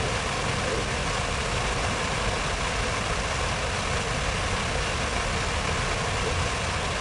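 Steady outdoor city-square ambience: a continuous, even rush of noise over a low rumble, with no single sound standing out.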